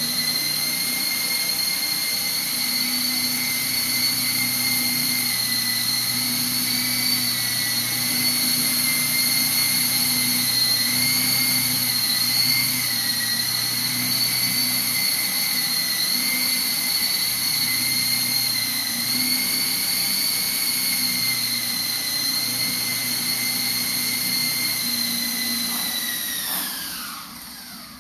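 Small indoor RC helicopter's electric motor and rotor whining steadily in flight, its pitch wavering slightly. Near the end the whine falls sharply in pitch and fades as the rotor winds down.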